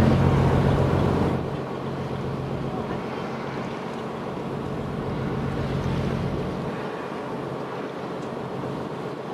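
Boat engine running with a steady low hum, mixed with water and wind noise; louder for about the first second and a half.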